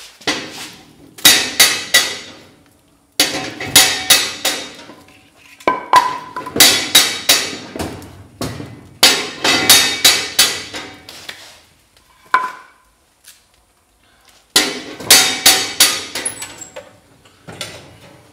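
Split firewood logs knocking and clattering against the steel firebox of a wood stove as they are loaded in, in several bursts of hard knocks with quiet gaps between, and a short metallic ring twice.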